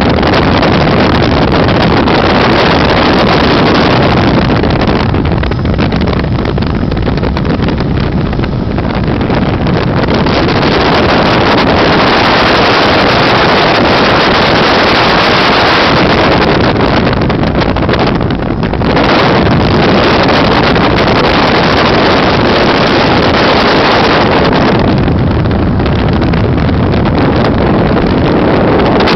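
Helicopter in flight heard from inside the cabin: loud, steady engine and rotor noise with wind on the microphone, dipping slightly a few times.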